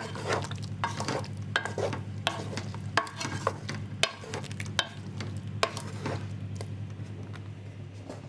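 A spoon stirring cooked apple pieces in a Dutch oven, with irregular scrapes and knocks against the pot that thin out near the end, over a steady low hum.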